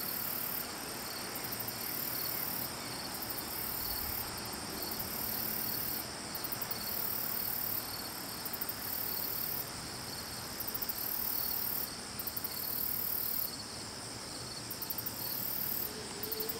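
Insect chorus: a very high-pitched insect song alternating buzzes of about a second with short runs of rapid ticks, repeating roughly every two seconds, over steady lower trilling from other insects.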